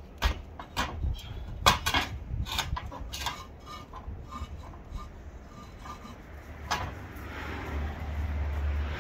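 Sharp metallic clinks and knocks from tools and hardware at a camper trailer's wheel and jack, several in the first three seconds, then sparser. Near the end a low rumbling noise swells.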